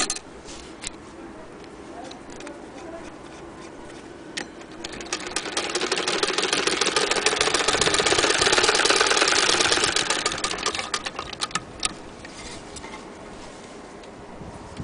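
Hand-cranked Singer 66K sewing machine stitching: a fast, even mechanical clatter that builds up about five seconds in, runs for about six seconds and slows away, with a few single clicks before it.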